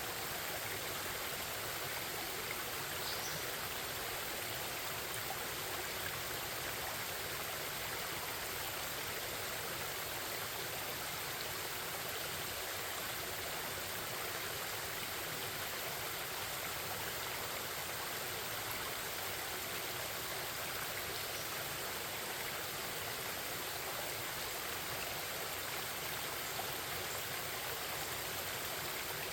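Forest stream flowing, a steady babbling rush of water.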